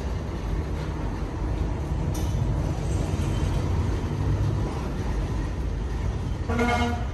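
Steady low rumble, with a short pitched tone about six and a half seconds in.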